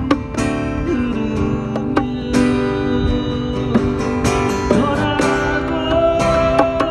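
Guitar-led music playing an instrumental passage between sung lines of a song, with steady strummed chords and a held melody note in the second half.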